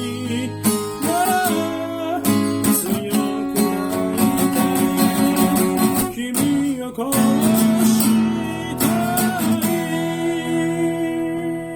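Acoustic guitar music with a singing voice, stopping abruptly near the end.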